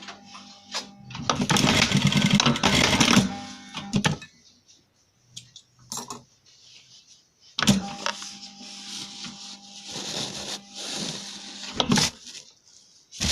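Simaru SM-9800M sewing machine running in two bursts of stitching, the first about three seconds long and the second about four and a half, with a pause between them and a sharp click near the end.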